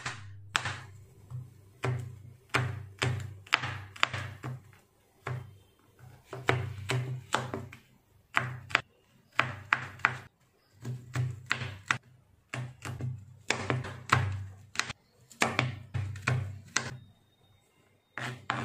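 Kitchen knife chopping garlic cloves on a plastic cutting board: quick runs of blade-on-board thuds with short pauses between runs, as the garlic is minced fine.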